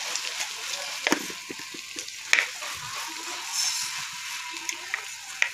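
Dried red chillies, garlic and red chilli powder frying in hot oil in a small kadhai for a tadka: a steady sizzle with crackling and a few sharper clicks.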